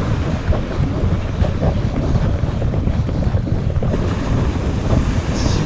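Wind buffeting the microphone in a steady low rumble, with surf washing on a sandy beach beneath it.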